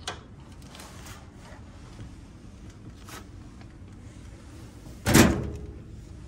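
A locker door shutting with a single loud bang about five seconds in, after a few small clicks and rustles.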